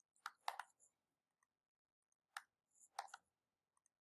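Faint clicks of a computer mouse selecting menu items: two close together near the start, then two more about two and a half seconds in.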